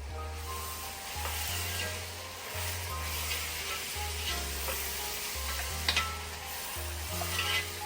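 Food sizzling as it fries in a pan, with stirring and a sharp knock of a utensil about six seconds in. Background music with a steady bass pattern plays underneath.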